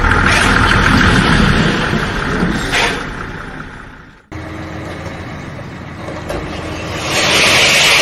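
Heavy diesel machinery running while an excavator drops dirt into a dump truck's steel bed. After a cut about four seconds in, the dump truck's engine runs with its bed tipped, and about seven seconds in a louder rushing noise comes in as the load of soil slides out.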